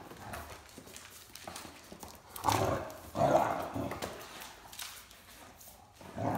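Two Great Danes, an adult and a puppy, playing on a hard tile floor: their claws and paws clatter on the tiles, with two louder bursts of dog play noise about two and a half and three and a half seconds in, and another near the end.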